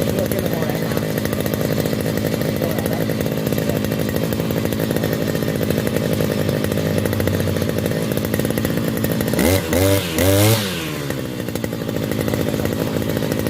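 Kavi 541 brush cutter's two-stroke engine running at idle, blipped up three times in quick succession about nine to eleven seconds in with the hand throttle, then settling back to idle.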